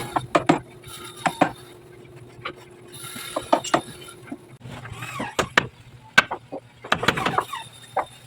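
Irregular sharp knocks of hand tools striking wood during wood carving, a few strokes a second at uneven spacing.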